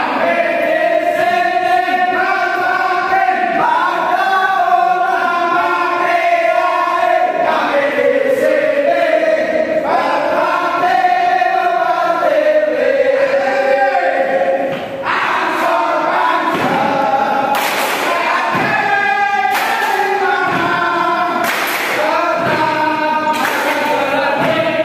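A group of men singing and chanting a yel-yel cheer in unison, with sharp accents, claps or stamps, in the second half and a brief break about fifteen seconds in.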